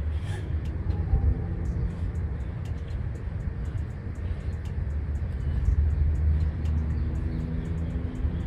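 A steady low engine rumble with a faint hum over it.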